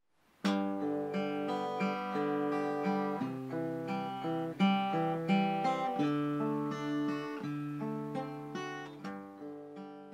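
Acoustic guitar playing the song's closing instrumental passage: plucked notes that start suddenly about half a second in, then fade out near the end.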